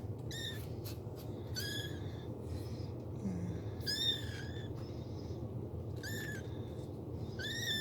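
Month-old kittens mewing: about five short, high-pitched cries, each rising and falling in pitch, one every second and a half or two.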